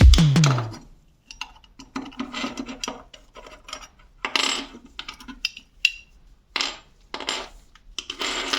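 Hand work on a small toy car: irregular short scraping and rubbing strokes with light clinks of small hard parts, separated by brief pauses.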